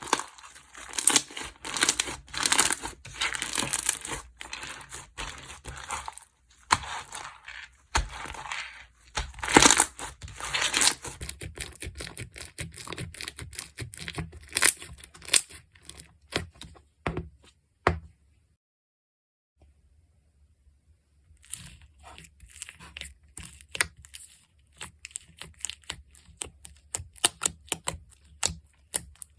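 Slime being squeezed and stretched by hand, giving a dense crackling, popping sound that thins out past the middle, breaks off for about three seconds, then starts again.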